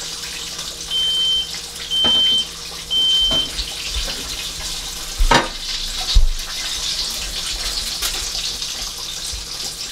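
Chicken deep-frying in a pot of hot oil, a steady hiss, with three short, high electronic beeps about a second apart near the start and two sharp knocks a little past the middle.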